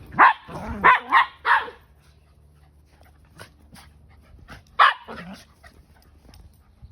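Two poodles play-barking and growling at each other: a quick run of short barks in the first two seconds and one more about five seconds in. Between them come soft sneezes, air puffed out through the nose, the dogs' play signal that the growling is not serious.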